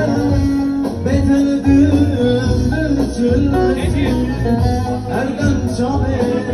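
Live band music with a plucked string instrument over a steady bass line, with singing voices over it.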